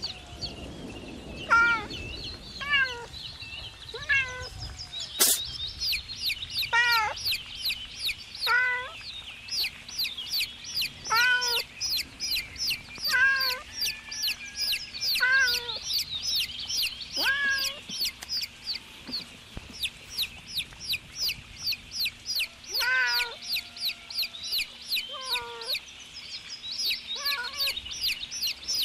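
Baby chicks peeping: short, high, falling cheeps that become a fast, almost continuous run from about a third of the way in. Under them is a lower call repeated every second or two, and there is a single sharp knock about five seconds in.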